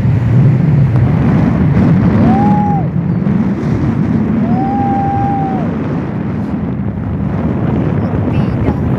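Wind rumbling heavily on the microphone while travelling, with two whistle-like notes: a short one about two seconds in and a longer one about four and a half seconds in, each sliding up, holding, then sliding down.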